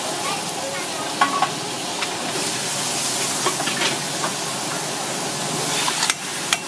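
Mud crab being broken apart and cut on a wooden chopping block: a few sharp cracks and knocks of shell and blade against the block, over a steady hiss.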